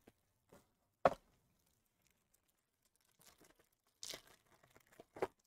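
Foil wrapper of a Topps Tier One baseball card pack crinkling and tearing open, about four seconds in. A single sharp tap about a second in is the loudest sound, with another short tap near the end.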